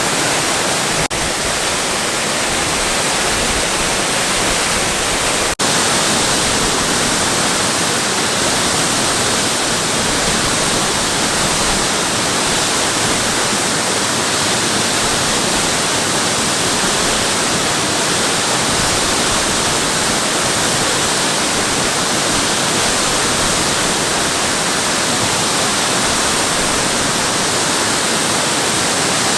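Waterfall: falling water rushing in a loud, steady roar with no change.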